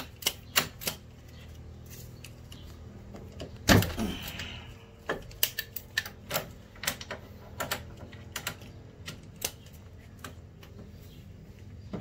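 Irregular metal clicks and taps of a brake pad being worked loose and pulled out of a 2014 Cadillac CTS's caliper bracket, with one louder knock about four seconds in. A faint low hum runs underneath.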